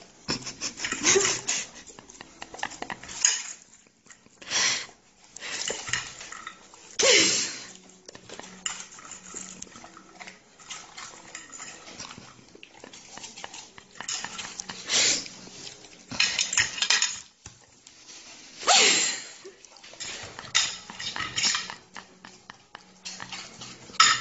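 A fork clinking and scraping against a plate of food in irregular bursts, with a few louder clatters scattered through.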